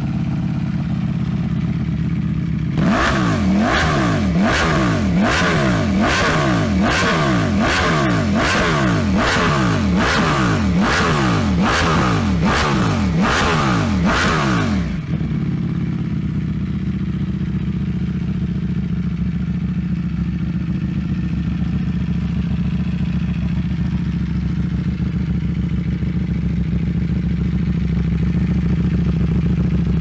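Ducati Panigale V4's V4 engine breathing through an FM Project underbelly slip-on exhaust: it idles, then is revved about a dozen times in quick succession, roughly once a second, each rev rising and falling sharply. About halfway through the revving stops and it settles back to a steady idle.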